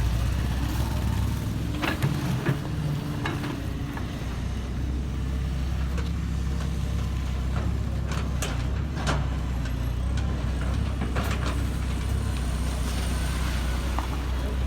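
Heavy diesel engine of construction machinery running steadily, with a few sharp clanks and knocks now and then.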